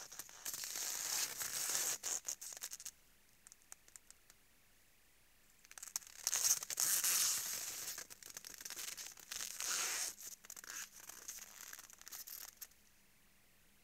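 Moose hooves crunching and scraping in crusted snow close to the microphone, in three long bouts of crackling with short pauses between.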